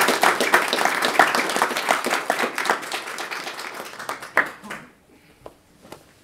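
Small audience applauding, the clapping dying away about five seconds in, followed by a couple of faint knocks.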